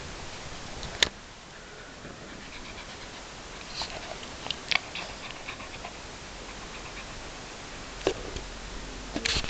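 Small terrier panting and moving about on carpet, with a sharp click about a second in and a few softer clicks and knocks later.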